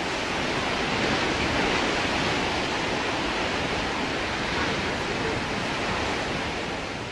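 Steady rush of ocean surf from a large breaking wave, fading out near the end.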